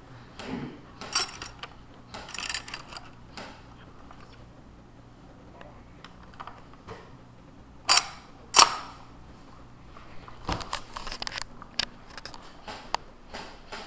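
Airsoft guns firing single shots: scattered sharp snaps, the two loudest a little over half a second apart near the middle, then a quick run of clicks near the end.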